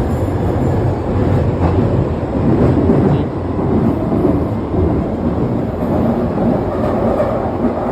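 London Underground train running, a loud, very noisy low rumble with faint rattling.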